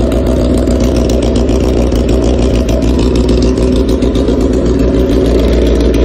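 Honda CBR1000RR's inline-four engine idling steadily, still warming up after a cold start.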